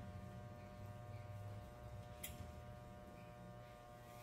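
Electric hair clippers running steadily with a even buzz while cutting a boy's hair for a taper, with one short click about two seconds in.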